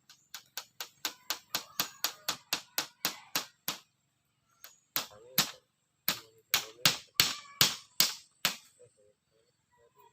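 A rapid series of sharp striking blows from a hand tool, about four a second, in three runs with short pauses between them; some blows leave a brief ring.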